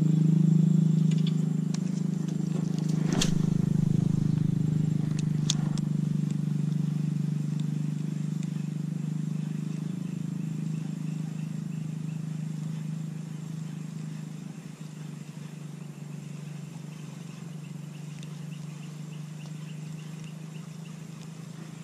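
Low, steady motor drone that slowly fades away, with two sharp clicks a few seconds in.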